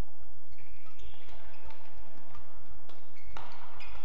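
Badminton players' shoes squeaking and footsteps thudding on the court mat, with one sharp racket hit on the shuttlecock a little past three seconds in as play restarts.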